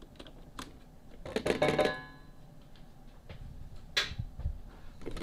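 Stainless steel stand-mixer bowl and its beater being handled: light clinks, a ringing metallic clang about a second and a half in, and a sharp click near the end.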